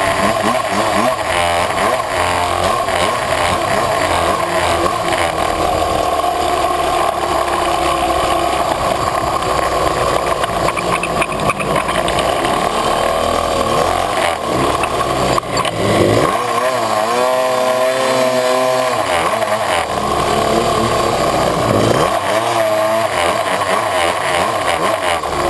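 Two-stroke engine of a tuned 70cc Puch Maxi racing moped running, its revs rising and falling as it rides slowly off the track into the pits. It is blipped sharply twice, about two-thirds of the way through and again near the end.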